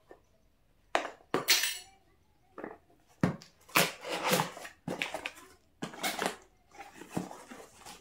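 Clear packing tape being peeled and ripped off a cardboard box in a string of short, irregular tearing bursts, with the cardboard rustling and scraping as it is handled.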